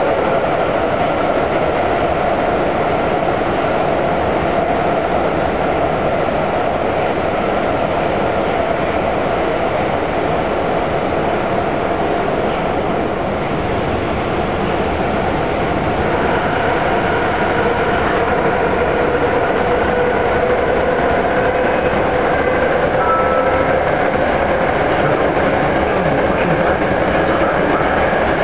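Vagonmash 81-series metro train running, heard from inside the passenger car: a steady rumble with held whining tones that shift in pitch about halfway through.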